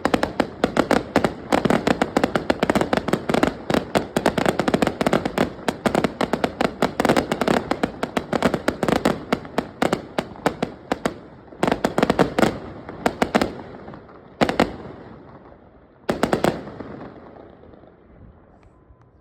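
Fireworks display: a dense barrage of rapid bangs and crackling, which thins after about eleven seconds into a few separate volleys of bangs, the last one about three-quarters of the way through, with the rumbling echo dying away.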